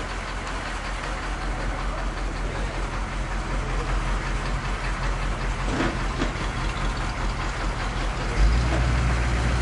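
Armoured military vehicle's engine idling with a steady low hum, which grows louder about eight seconds in.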